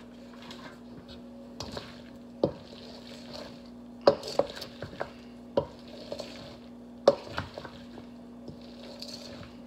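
A wooden spatula stirring egg salad in a stainless steel mixing bowl: a soft, wet swishing broken by sharp knocks, a dozen or so, irregularly spaced, as the spatula hits the metal bowl.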